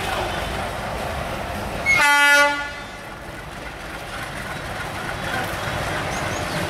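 Diesel locomotive's horn giving one short blast about two seconds in, a single steady note that is the loudest sound. Before and after it, a steady rumble of the slowly passing train and crossing noise.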